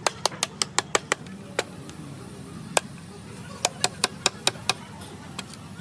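Sharp knocks in two quick runs of about six a second, with two single knocks between them, over a low steady hum.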